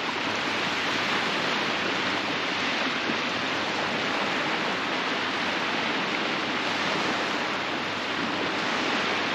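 Surf breaking on a sandy beach, heard as a steady, even rush.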